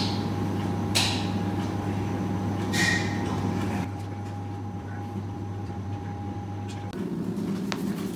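Room tone: a steady low electrical hum with a thin higher tone over it, and a few soft clicks and knocks. The hum cuts off about seven seconds in.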